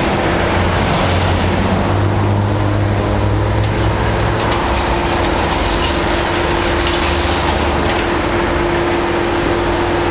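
Demolition excavator working its high-reach arm: a steady engine and hydraulic drone with a constant whine, the low engine note swelling under load for a few seconds, and a few faint knocks of breaking debris.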